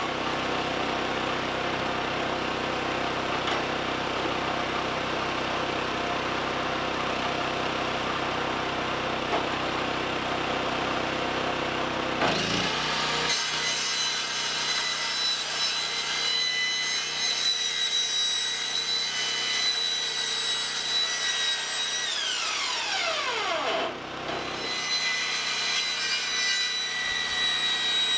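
Corded circular saw cutting through a corrugated metal roof panel to make the opening for a wood stove's chimney pipe, a steady high scraping run. About two-thirds of the way through the motor winds down, then starts up and cuts again a second or so later.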